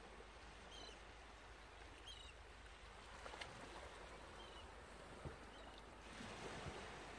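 Near silence: room tone with a few faint soft clicks and rustles from a denim handbag being handled, and faint short high chirps repeating about once a second.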